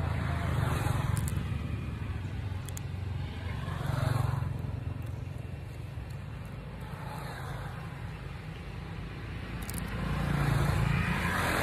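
Road traffic passing: a steady low rumble that swells and fades about three times as vehicles go by.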